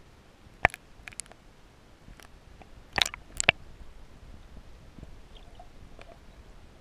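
Underwater sound picked up by a submerged camera: a steady low hiss with sharp clicks, a few about a second in and two more around three seconds in.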